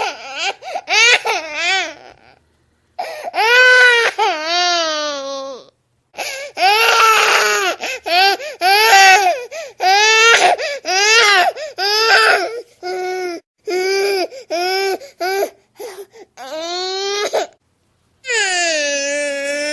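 A baby crying loudly in wailing bouts of one to three seconds, each cry rising and falling in pitch, with brief gasping pauses between them.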